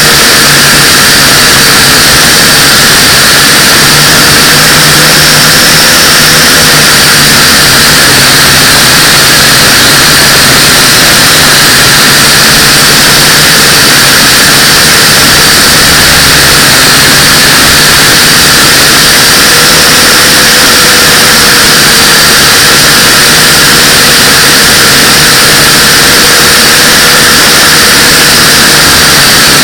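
Pioneer UFO 509V toy quadcopter's motors and propellers running during flight: a loud, steady rushing noise with faint tones that waver slightly up and down.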